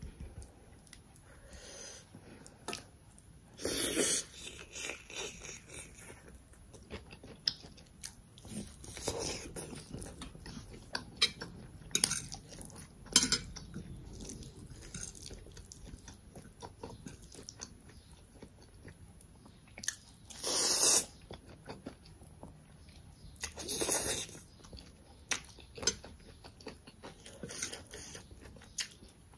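Close-up eating sounds: chewing and biting on black bean noodles and fried pork, with many small clicks of a fork and spoon against the plate. A few louder noisy bursts stand out, about four seconds in and twice in the last third.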